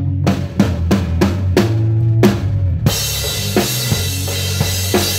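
Live band with a Mapex drum kit: a run of single drum hits, about three a second, over held bass and guitar notes. About three seconds in, the cymbals and the full band come in together and keep going.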